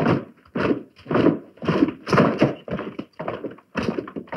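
Horse hooves clopping on a hard surface in a steady walking rhythm, a little under two strikes a second, as a horse-drawn carriage moves off.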